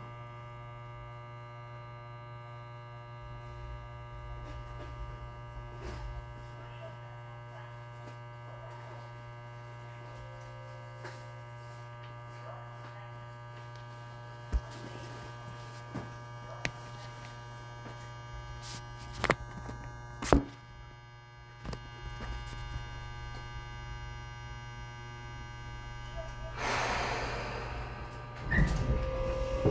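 Tobu 20400 series electric train standing still: the steady hum of its onboard electrical equipment, with a few sharp clunks. Near the end a rush of noise comes in, then rumble and a rising whine from the Toyo GTO inverter as the train starts to move.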